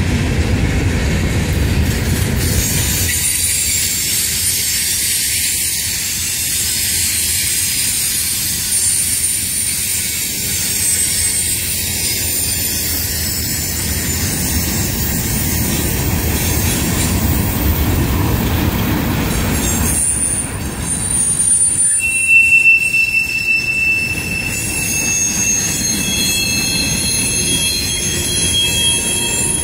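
CSX freight train's cars rolling past with a steady rumble of wheels on the rails and high-pitched wheel squeal. The squealing grows sharper and more tonal about two-thirds of the way through.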